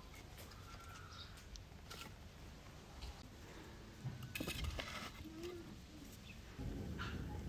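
Faint knocks and clicks of firewood logs being handled and set in place under a metal ring stand, with a cluster of knocks about four and a half seconds in and a few bird chirps. A low rumble comes up near the end.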